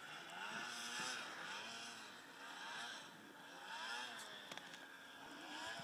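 Faint, distant snowmobile engines revving up and down in repeated swells, each a rising then falling whine about every one to one and a half seconds. A couple of sharp clicks about four and a half seconds in.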